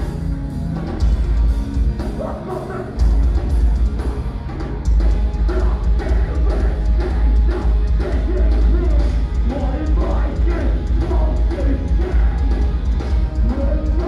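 A post-hardcore band playing live: distorted electric guitars, bass and a drum kit with a vocalist singing over them, the low end heavy and overloaded in the recording. The band grows louder about a second in and again about three seconds in, then stays at full volume.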